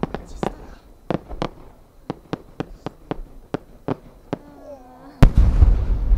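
Sharp cracks at uneven intervals, then about five seconds in a loud deep boom from a 10-go (shakudama) aerial firework shell bursting, followed by a rolling low rumble. A brief voice is heard just before the boom.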